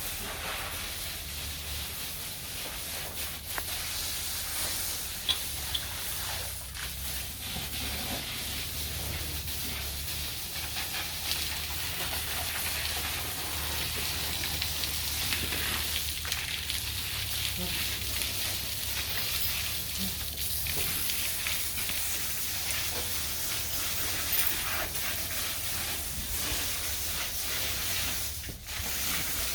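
Steady hiss of water spraying from a hose, washing down the dairy shed, over a low steady hum.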